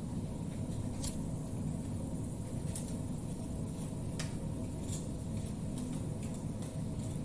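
Frying on a stovetop, turned with metal tongs: a steady low drone with sparse sharp crackles and clicks at irregular intervals.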